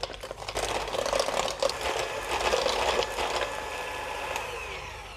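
Electric hand mixer running, its beaters churning eggs and vanilla into creamed butter and sugar and clattering against the stainless steel bowl, with a steady motor whine. Near the end the whine falls in pitch.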